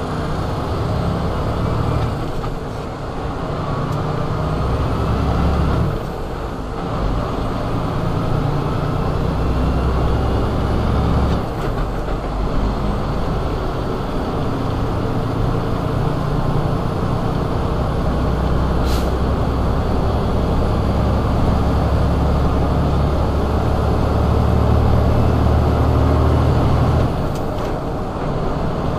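Tractor-trailer's diesel engine running under load while pulling full double trailers, a deep steady drone over road noise. The engine note drops off and picks up again a few times.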